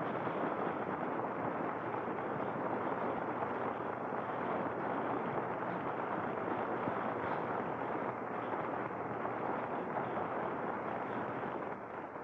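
Radio-drama sound effect of a steady rushing wind, easing off near the end.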